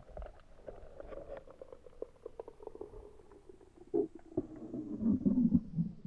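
Muffled underwater sound heard through a camera's waterproof housing: a low gurgling rumble scattered with short crackling clicks. It swells louder with a few knocks over the last two seconds as the diver moves in.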